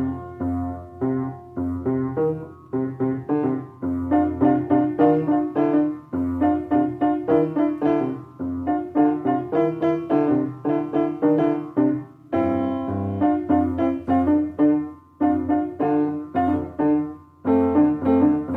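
Piano music: a steady stream of notes over a held bass line, several notes a second.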